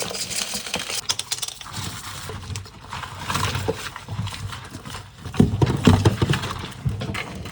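A cow moving and handling things at close range: scattered knocks and clicks, with a louder run of low thuds about five and a half seconds in.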